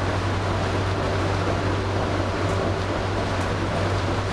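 Steady cabin running noise of a Bombardier Innovia APM 100 rubber-tyred automated people mover cruising along its guideway: an even rush with a constant low hum.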